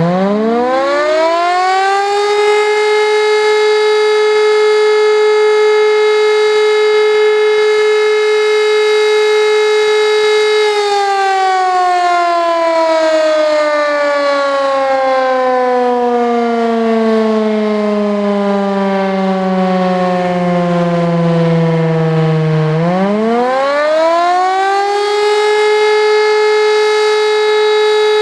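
WWII-era Elektror L1 electromechanical motor siren, its nine-port high-tone rotor sounding the German fire alarm signal. It winds up to a steady high tone and holds it for about eight seconds. When the motor is cut about ten seconds in, it coasts down in a long falling wail, then about twenty-three seconds in it winds up again to the same steady tone.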